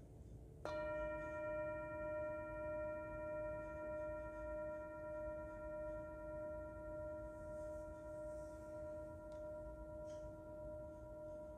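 Metal singing bowl struck once with a mallet about a second in, then ringing on as a steady chord of tones whose loudness slowly wavers and gradually fades.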